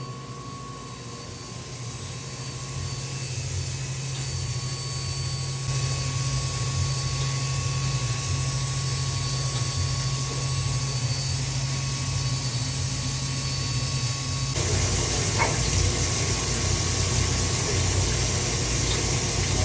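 OptiSonic 550X ultrasonic CNC machine running as it machines a ceramic matrix composite bolt: a steady low hum under a noisy hiss. The sound steps up abruptly about six seconds in and again about fifteen seconds in.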